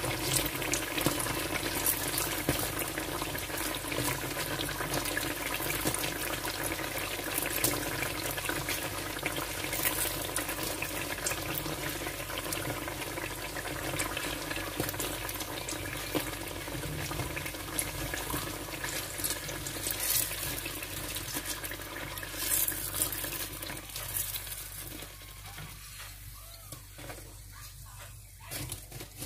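Battered eggplant slices sizzling and crackling in hot oil in a frying pan. The sizzle dies down near the end as the slices are lifted out.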